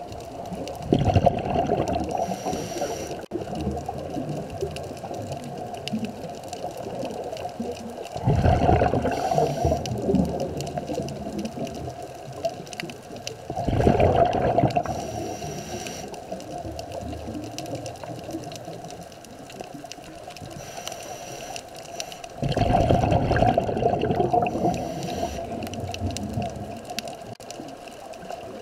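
Scuba regulator breathing heard underwater: four long rushes of exhaled bubbles, each lasting a couple of seconds and spaced several seconds apart, with steady underwater noise between them.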